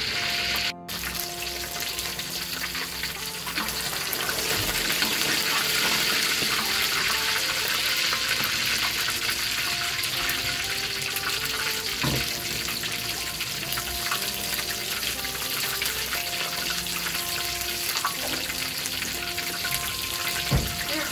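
Half a marinated duck deep-frying in hot oil in a wok: a steady, dense sizzle, with a brief gap about a second in.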